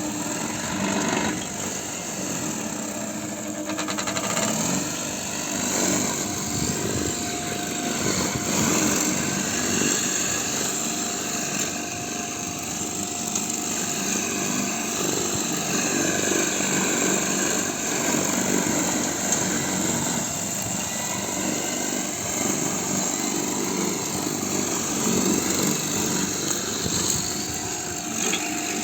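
Lawn mower running steadily, its engine pitch wavering slightly as it works.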